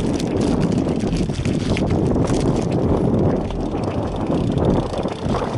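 Wind buffeting the microphone, a steady low rumble, with a few light clicks in the first couple of seconds.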